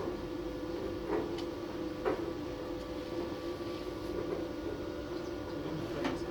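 A steady machine hum, with three sharp knocks about one, two and six seconds in.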